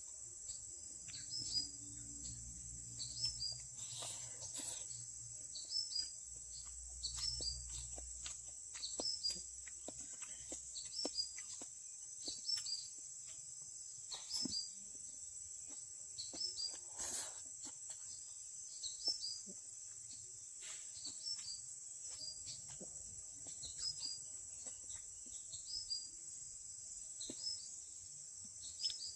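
Insects droning steadily at a high pitch, with a short rising chirp repeated about every second and a half and scattered faint clicks; a low rumble runs under the first ten seconds or so.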